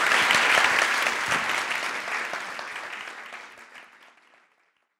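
Audience and panel applauding, dense clapping that fades away over the last couple of seconds.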